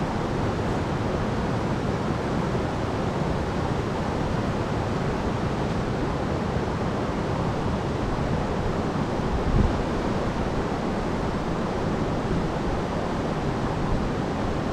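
Fast-flowing river rushing steadily, with one brief low thump about ten seconds in.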